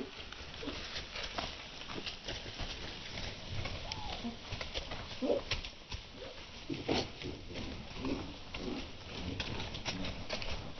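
Chickens making short, low clucking calls every second or so, with a stream of small scratching clicks and wing-flap rustles in straw.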